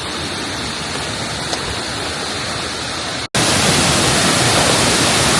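Waterfall rushing, a steady wash of falling water. About three seconds in the sound cuts out for an instant and comes back louder.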